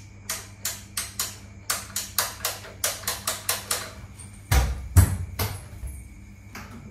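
Wall light switch flicked on and off rapidly: a quick run of sharp clicks, three to four a second, switching the room lights, then a few heavier deeper thumps and one last click, over a steady low mains hum.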